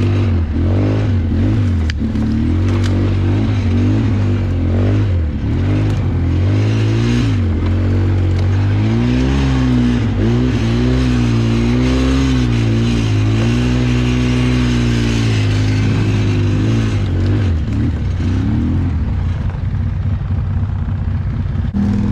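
ATV engine running under changing throttle, its pitch rising and falling again and again as it is ridden, then settling lower near the end.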